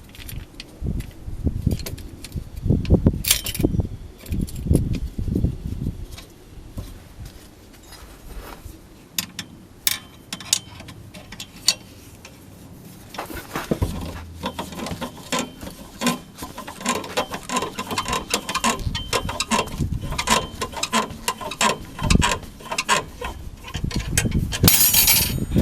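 Hand tools working on a car wheel: scattered metal clicks and knocks, then from about halfway a quicker, rhythmic run of ratchet-like clicking with a faint metallic ring.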